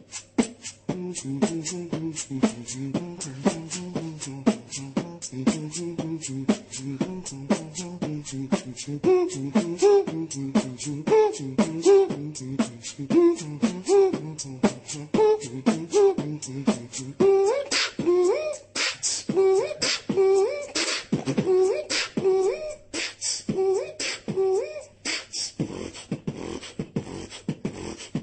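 Beatboxing: a fast, steady rhythm of mouth-made kick, snare and hi-hat clicks with a hummed melody line carried over it by the same voice. In the second half the percussive hits get sharper and the hummed line climbs higher.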